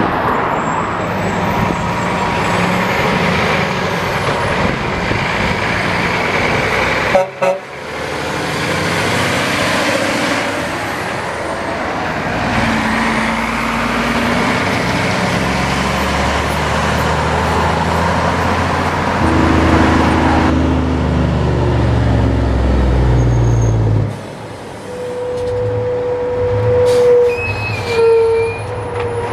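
Tractor-trailer dump trucks driving past on a highway: diesel engines running with tyre and road noise, one engine's pitch rising as it pulls away. Near the end a horn toots several times.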